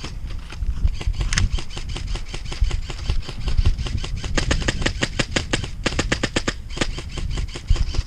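Airsoft guns firing in rapid bursts: runs of sharp clicks, densest in the second half, over a low thumping rumble.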